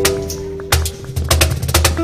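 Background music of flamenco-style acoustic guitar: a chord rings out and fades, then sharp strums resume a little under a second in.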